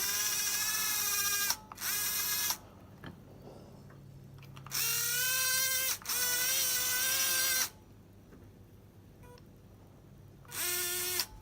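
A worn Mabuchi slot car motor on a PWM controller, giving a high-pitched whine in five separate spells of up to about a second and a half, with short gaps between. The whine is the PWM noise heard at low throttle.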